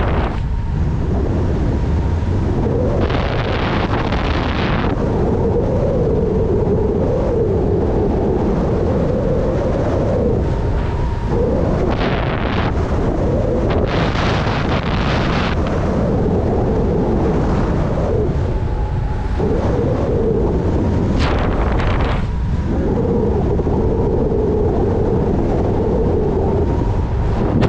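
Wind buffeting the microphone of a body-mounted camera during a descent under an open parachute: a steady loud rumble with several brief surges of higher hiss.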